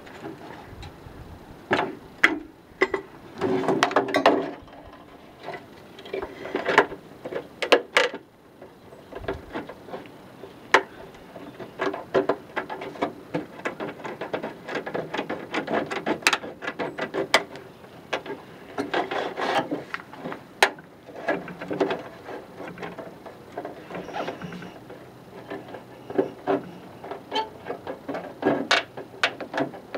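Tin snips cutting out a downspout hole in a rain gutter, with irregular snips, clicks and knocks as the gutter is handled and shifted on a wooden bench.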